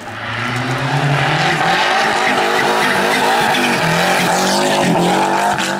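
Renault 5 rally car's engine revving hard as it comes through a tight turn and passes close, its pitch rising and falling with throttle and gear changes, with some tyre squeal. Louder from about half a second in, dropping away just before the end.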